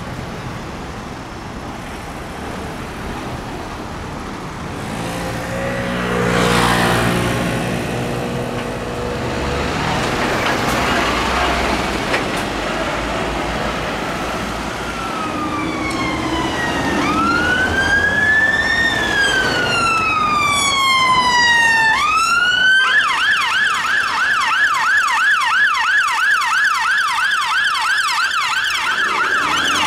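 Road traffic passing for about the first half, then an emergency vehicle siren wailing, its pitch sweeping slowly up and down. About three-quarters of the way in it gives way abruptly to a fast yelp siren that runs on.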